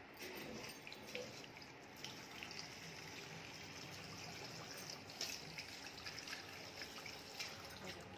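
Water running from a tap into a washbasin, with a few small splashes and knocks as hands work under the stream.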